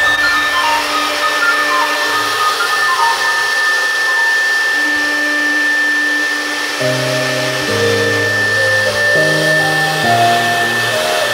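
CNC wood router's spindle running with a steady high whine and rushing noise as the cutter carves a wooden board. Electronic background music plays over it, with a bass line coming in about seven seconds in.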